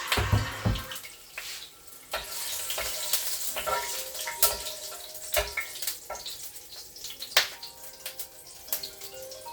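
Kitchen work sounds: a steady hiss with many scattered clicks and knocks.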